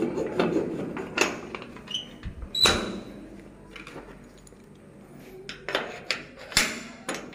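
A series of sharp knocks and clicks, the loudest about two and a half seconds in with a brief ring after it, and a few more near the end.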